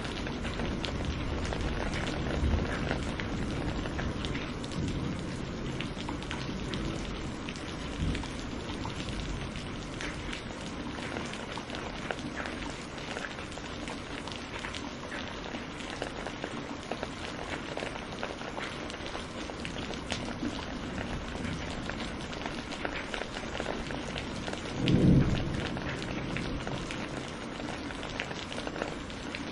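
Steady rain with many close individual drop hits, and a short low rumble of thunder near the end.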